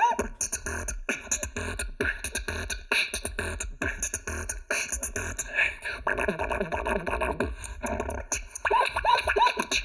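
Beatboxing: a dense, fast rhythm of mouth-made drum sounds, kick, snare and hi-hat, with short sliding vocal tones about a second before the end.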